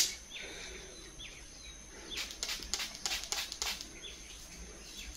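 A sharp click at the start, then a quick run of short hissy spritzes about two seconds in as a pump spray bottle is worked at braided hair. Small birds chirp faintly throughout.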